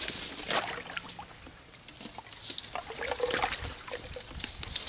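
Shallow water trickling and splashing as hands work a trap in it, with scattered small clicks and taps, quieter for a moment then busier again near the end.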